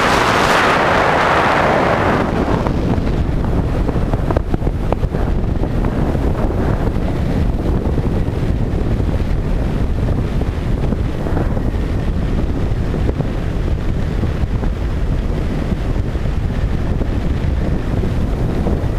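Wind buffeting the microphone of a camera on a moving bike: a steady low rumbling rush, with an added brighter hiss for the first two seconds or so.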